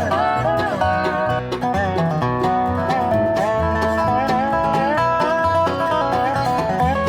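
Background music: upbeat bluegrass-style tune with banjo and guitar.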